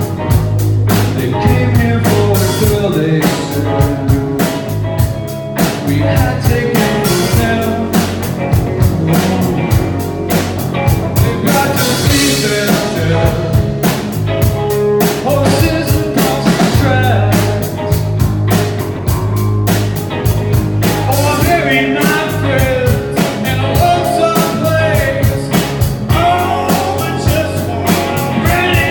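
Rock band playing with a steady drum-kit beat, guitar and singing.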